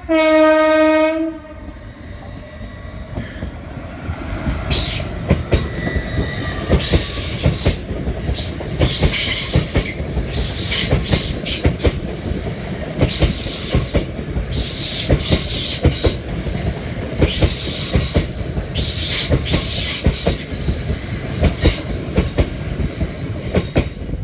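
LNER Azuma high-speed train's horn ends its lower note about a second in. The train then runs by as it pulls away from the station, with a low rumble, rapid clickety-clack of wheels over rail joints, and high-pitched squeal-like bursts every second or two.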